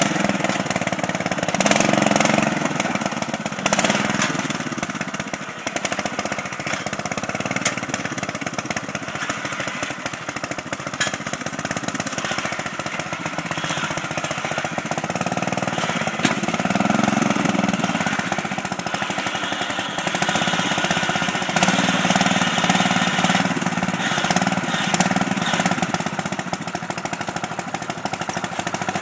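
Riding lawn mower's engine running under load, rising and falling in speed several times, with a rapid rattling and knocking over it.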